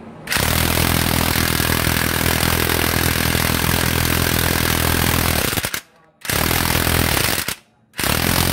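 Impact wrench hammering on the 19 mm crankshaft pulley bolt of a Honda 3.5L V6, trying to break loose a bolt torqued to about 180–185 lb-ft. It runs in three bursts: one about five seconds long, then two shorter ones.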